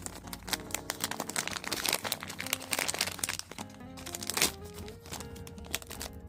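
Plastic packaging crinkling and crackling as a haul of parcels is handled, over steady background music.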